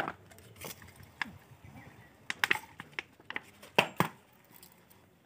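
Scattered short taps and clicks as the air-filter mesh screen of a Bajaj Discover 100 is handled and cleaned with petrol. The loudest are at the start and about four seconds in.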